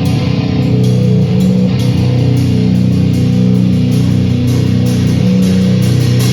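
Loud rock music played by a band: guitar holding sustained low chords over a drum kit, with cymbal strokes at a regular beat.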